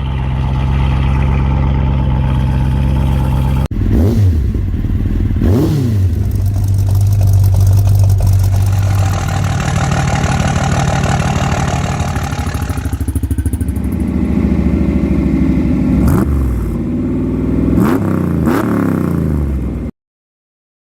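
Motorcycle engine running and revving repeatedly, its pitch rising and falling several times, in edited clips with a sharp break about four seconds in; the sound stops abruptly near the end.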